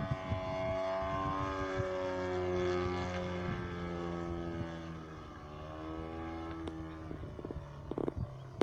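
Large-scale aerobatic radio-controlled model plane's engine and propeller running in flight. Its pitch rises and falls as it manoeuvres. It is loudest in the first few seconds and grows fainter as the plane moves away.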